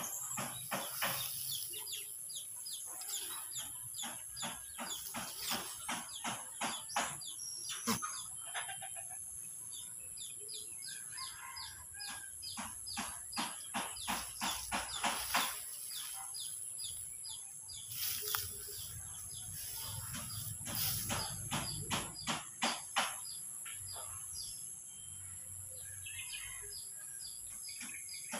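Goat grazing close by, tearing and chewing mouthfuls of grass and leaves in runs of crisp crunching clicks, several a second. A steady high-pitched insect drone runs underneath.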